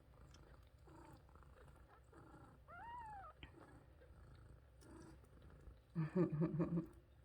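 Newborn kittens mewing faintly while nursing, with one clearer mew that rises and falls in pitch about three seconds in. Near the end comes a louder short burst of rapid pulsing purring lasting under a second.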